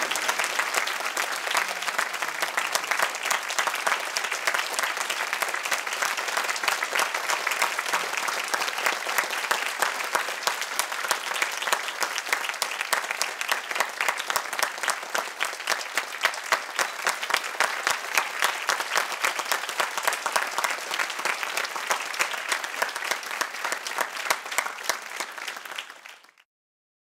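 Audience applauding, many hands clapping in a dense, steady patter that cuts off suddenly near the end.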